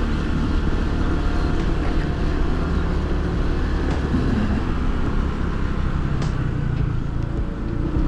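Motor scooter engine running steadily while riding, with wind and road noise on a helmet-mounted microphone.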